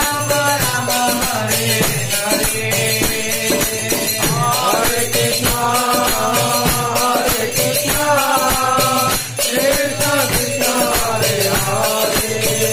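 Devotional kirtan: voices singing a chant over steady, rhythmic jingling percussion.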